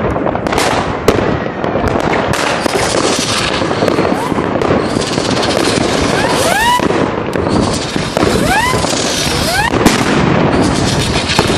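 New Year's Eve fireworks going off without a break: dense crackling and many sharp bangs, with several rising whistles about six to ten seconds in.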